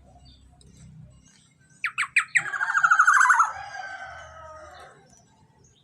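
Young black-naped oriole calling: three quick sharp down-slurred notes, then a loud harsh rattling call that falls in pitch and fades away.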